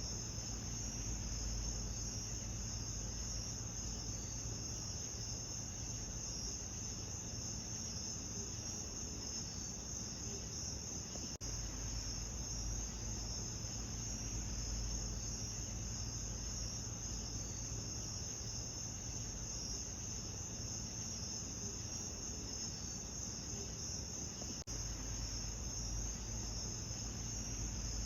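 Steady, high-pitched chorus of chirring insects such as crickets, over a low rumble. It runs on without change, apart from two tiny breaks where the recording is looped.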